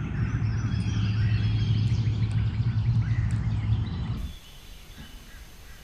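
Small birds chirping over a steady low rumble. The rumble cuts off suddenly about four seconds in, leaving fainter birdsong.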